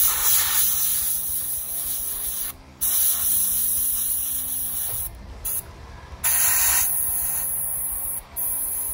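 Airbrush spraying paint in repeated bursts of two to three seconds, a steady hiss of air that drops away briefly each time the trigger is released, about four bursts in all. It is laying down the white of a zenithal highlight on a miniature.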